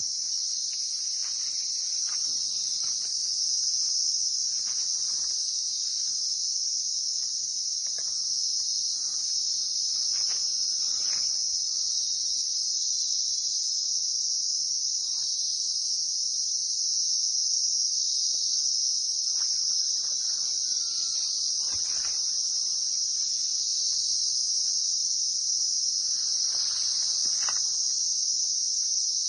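Steady high-pitched shrill of insects calling together without a break, with faint brief rustles now and then.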